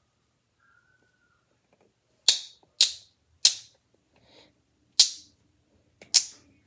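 Five sharp plastic snaps at uneven intervals, starting about two seconds in: the cap of a baby oil bottle being worked at without coming open.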